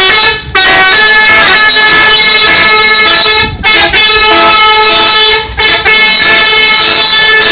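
Bus 'telolet' musical multi-tone air horn blaring a tune, the notes stepping from one pitch to another. It sounds in three long, very loud blasts with brief breaks between them.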